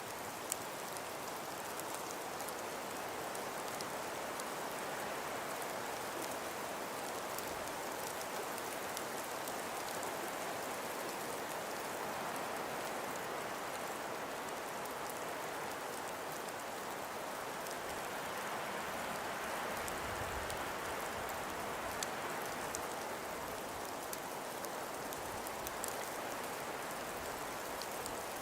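Steady hiss of wind-driven snowfall, with faint scattered ticks of flakes or ice striking a surface and a brief low gust about two-thirds of the way in.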